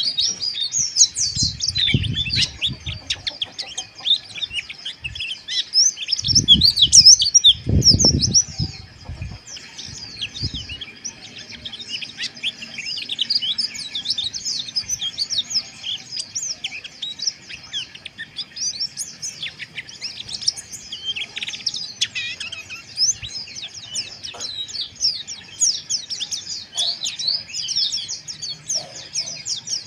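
White-eyes (pleci) singing a rapid, rough chattering twitter (ngeriwik), several birds overlapping in dense high chirps and trills. Low thuds come about two seconds in and again between about six and nine seconds in.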